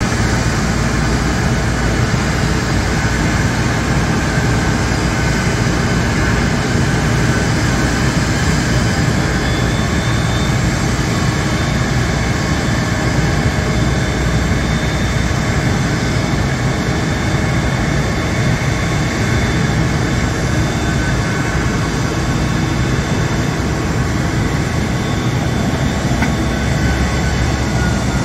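Steady jet whine over a low rumble from a Boeing 787-9 Dreamliner being pushed back by a tug.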